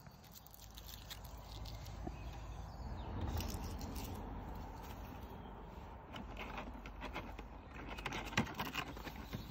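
Light clinks, clicks and rustling of camp cooking gear being handled. There is a low rumble in the middle and a sharper knock a little after eight seconds in.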